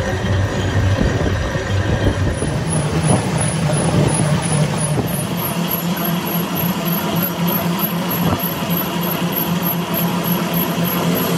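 Heavy workshop machinery running steadily, a dense mechanical din. Its low hum steps up in pitch about two seconds in.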